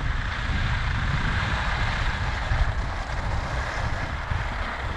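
Wind buffeting a GoPro's microphone during a ski run down a groomed piste, a steady low rumble under the hiss of skis sliding on the snow.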